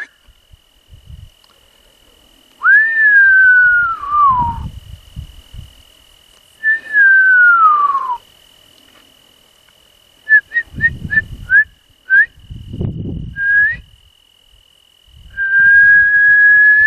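A person whistling close to the microphone. There is a short rising note, then two long notes that slide downward, a quick run of short chirps, and near the end one long level note, with low breath noise under the whistles.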